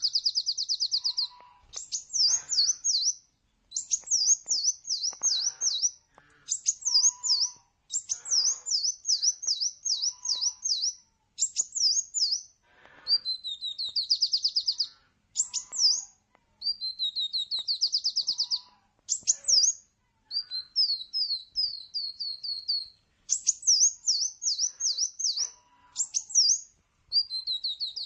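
A sunbird singing a high, rapid song. Phrases of sharp down-slurred whistled notes come several to a second, mixed with short fast trills and broken by brief pauses, over and over.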